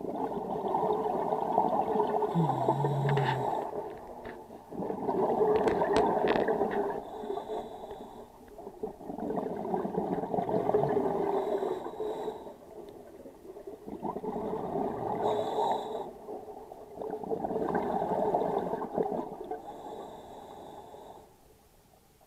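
Scuba regulator breathing heard underwater: about five bubbling exhalations, each a couple of seconds long, with short quieter pauses for the inhalations between them, dying away just before the end.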